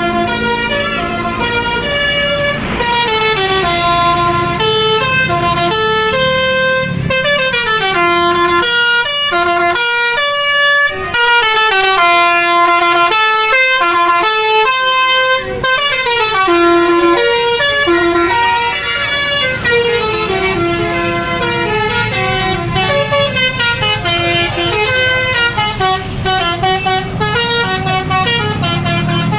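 Tour bus's basuri telolet horn playing a fast melody of stepped musical notes, going up and down in pitch, with a couple of short breaks; the bus engine rumbles underneath.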